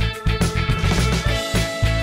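Background music with a steady beat, bass and plucked guitar.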